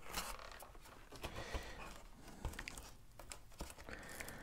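Faint handling sounds of EPO foam model-airplane parts: foam rubbing and creaking against foam and hands, with scattered small clicks.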